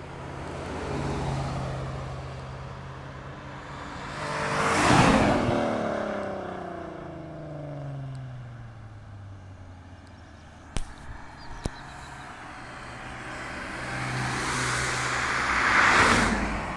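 Volkswagen Golf R32 Mk4 with its VR6 running through a Supersprint exhaust, the catalytic converter and mid-pipe removed, driving past twice. The first pass, about five seconds in, is the loudest, and the engine note falls away after it; the second comes near the end.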